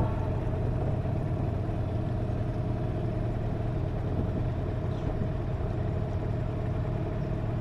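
Hangkai 18 hp outboard motor running steadily at an even, low engine note.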